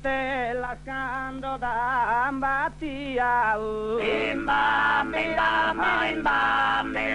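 Sardinian shepherds' polyphonic male singing (canto a tenore). A lone voice sings a wavering, ornamented line, then about four seconds in the other voices come in together on a dense, held chord.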